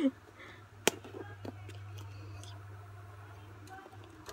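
Hands handling a smartphone's cardboard retail box while breaking its seal: one sharp click about a second in, then a few faint taps and scrapes, over a steady low hum.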